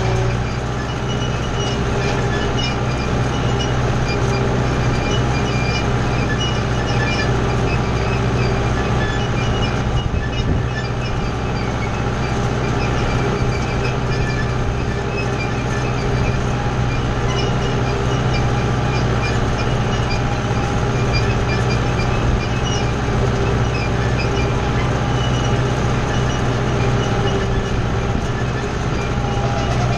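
Kubota tractor's diesel engine running steadily under load while pulling a wheel rake through hay, a constant low engine note with steady higher whines over it.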